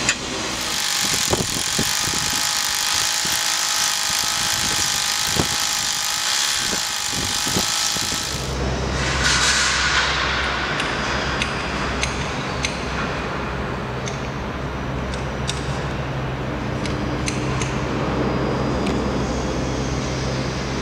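Construction-site noise. For about the first eight seconds there is a steady high hiss with a few sharp knocks, then it switches to a low, steady machinery hum with scattered clicks and knocks.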